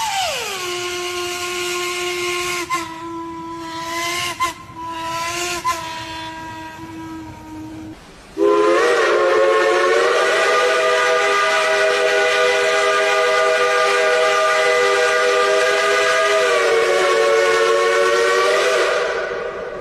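Steam locomotive whistles blowing with a strong steam hiss. The first whistle slides down in pitch at the start and holds a low note for about eight seconds. Then a louder multi-note chime whistle sounds several tones at once, steadily for about eleven seconds.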